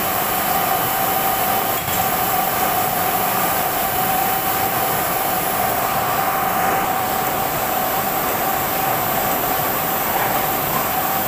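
Heidelberg GTO 52 offset printing press running: a steady mechanical din with a constant tone in it.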